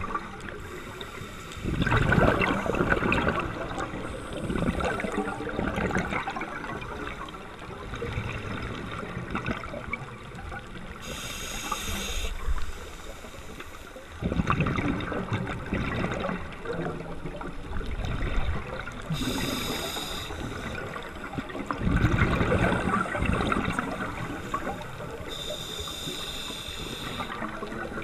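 Scuba diver breathing through a regulator, heard underwater: three bubbling rushes of exhaled air, each a couple of seconds long, with a shorter hiss of inhaling before the second and third and again near the end, in a slow, even cycle.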